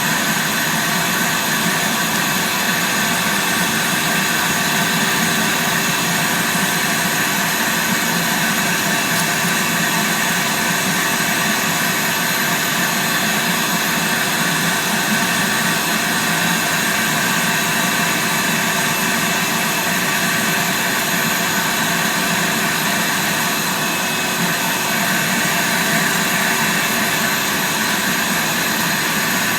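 Vacuum cleaner running steadily while carpet is vacuumed, a constant loud noise with a steady whine.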